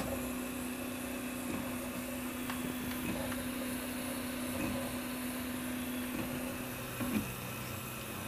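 Original Prusa 3D printer laying down its first layer: the stepper motors driving the print head give a steady hum, which drops to a lower hum about seven seconds in as the head's movement changes.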